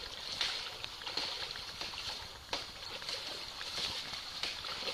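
Water sloshing and splashing as people wade through a waist-deep river, with scattered splashes over a steady hiss of moving water.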